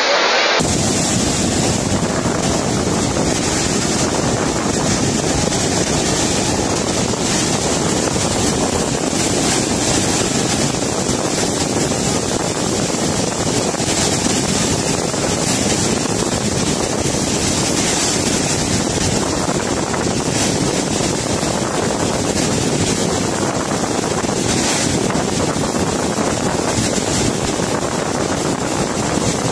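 Muddy floodwater rushing in a flash-flood torrent: a steady, unbroken noise of churning water.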